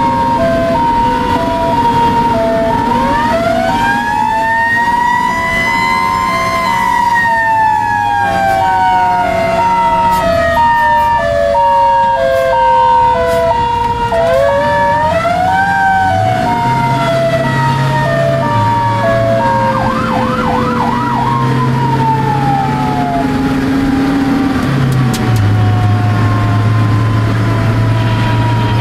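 Fire truck sirens heard from inside a ladder truck's cab on an emergency run. One siren winds up and then slowly winds down, twice. Under it an electronic siren alternates between two tones until a little past halfway, and a brief fast yelp comes near the end.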